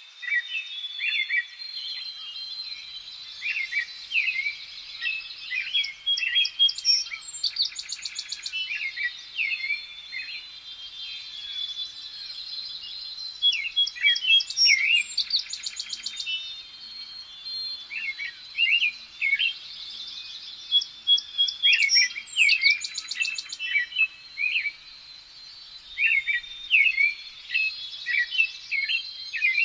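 Birds chirping and calling in a busy chorus: many short rising and falling chirps, broken every few seconds by rapid high trills. The same run of calls comes round again about every seven seconds.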